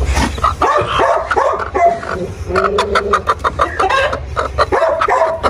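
A hen clucking and fussing as she is disturbed on her nest in a plastic crate, with sharp rattles from the crate and wire cage partway through; the keeper thinks she has gone broody.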